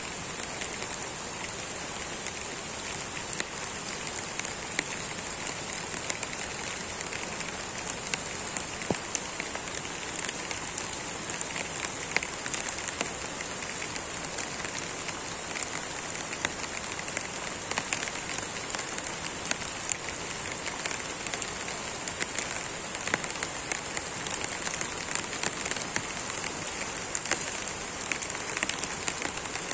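Steady rain, pattering with frequent sharp ticks of drops.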